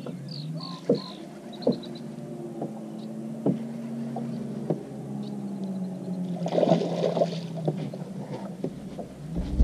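A steady low hum with scattered light knocks, a few short high chirps in the first second or so, and a brief rush of noise about two-thirds of the way through.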